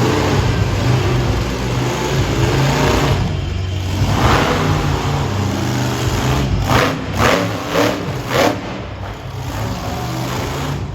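Monster truck engine revving hard and rising and falling in pitch during a timed run, with four short loud bursts in quick succession about two-thirds of the way in.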